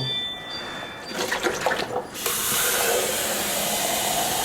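A kitchen tap runs water into the coffee machine's milk container as it is rinsed out. The water comes on with a steady rush about halfway in, after a few short clatters of handling.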